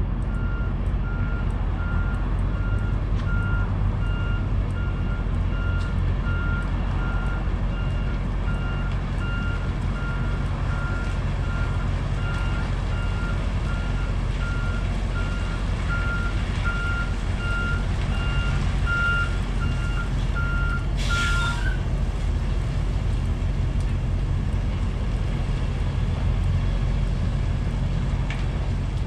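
A semi-truck backing up: its reverse alarm beeps steadily over the low rumble of the diesel engine. About 21 seconds in the beeping stops and a short, loud hiss of air comes from the truck's air brakes.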